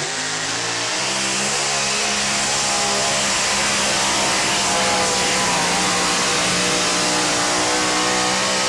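Two-wheel-drive pulling truck's engine under full power as it drags the weight-transfer sled. The revs climb over the first second or so, then hold high and steady.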